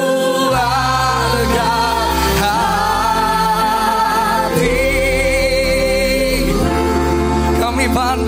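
Live worship band music: a male lead singer sings a slow worship song with long held notes, over acoustic guitar, bass guitar and a backing singer, the bass moving to a new note about every two seconds.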